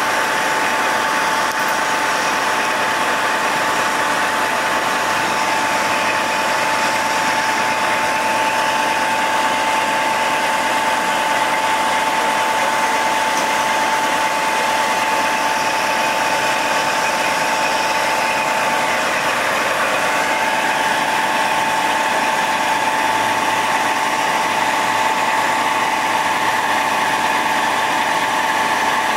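An engine idling steadily, with a constant high-pitched whine over it.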